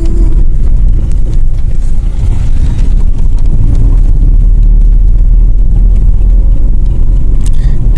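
Steady low road rumble of a moving vehicle heard from on board, with wind buffeting the microphone.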